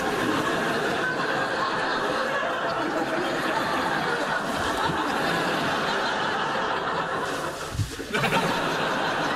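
Studio audience laughing at length, dipping briefly near the end and then swelling again.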